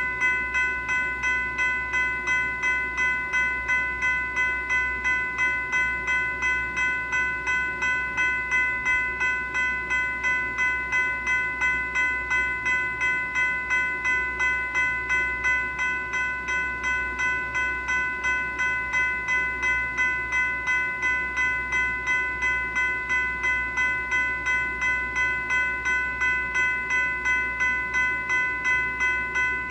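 General Signals Type 3 electronic railroad-crossing bell (E-Bell) ringing continuously, an even, rapid series of bright electronic dings with no break.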